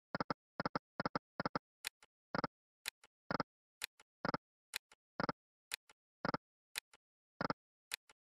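Online video slot's game sound effects: a run of short, sharp reel-spin and reel-stop clicks, about two a second and some in quick pairs or triples, as spin after spin is played.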